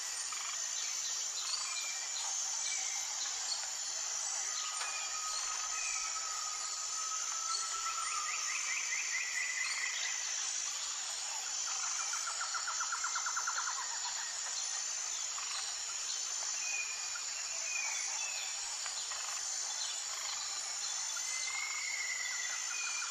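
Outdoor ambience of birds calling over a steady, high insect drone: scattered short whistled calls, with a couple of rapid trills about a third and halfway through.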